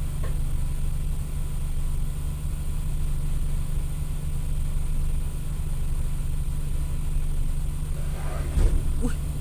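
Steady low rumble of a firefighting tug's diesel engines running. A short thump near the end.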